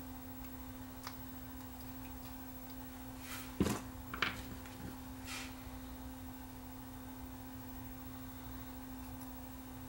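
A steady low electrical hum at one constant pitch, with a few short clicks and knocks about three and a half to five and a half seconds in.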